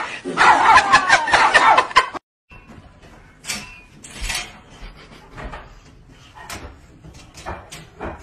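Two people laughing and talking loudly, then cut off suddenly. Next, a dog rattles the metal slide latch of a wire crate door with its mouth, making scattered light metallic clicks and knocks.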